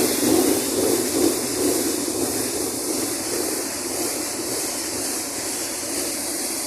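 Borewell being flushed with compressed air from a compressor: a steady rushing, hissing gush of air and water out of the bore, easing slightly after about a second and a half.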